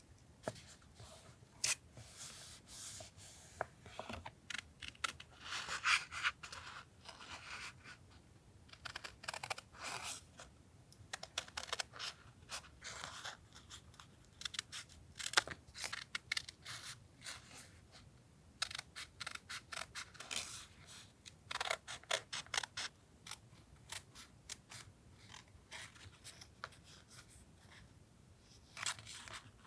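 Paper handling while decorating a journal collage: irregular bursts of rustling and crinkling paper with many short, sharp clicks and taps scattered throughout.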